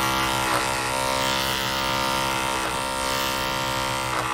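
Electric hair clipper running against hair with a steady buzzing hum, its pitch sagging briefly a few times.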